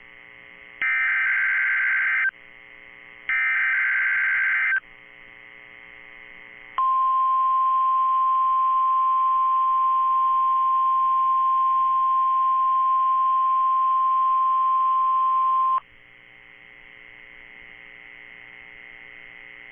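NOAA Weather Radio emergency alert test signal. It opens with two buzzy, warbling SAME header data bursts, each about a second and a half long. After a short gap comes the single steady warning alarm tone, held for about nine seconds and then cut off suddenly. A faint hum from the radio broadcast fills the gaps. Together these make up the routine weekly test of the alert system.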